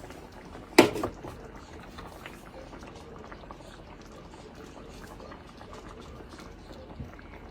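Gravy with onions and bell pepper simmering in a cast iron skillet: a steady soft bubbling and fine crackling. A sharp knock about a second in.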